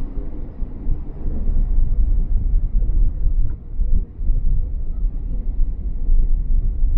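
Strong wind buffeting the microphone: a loud, irregular low rumble that surges and drops.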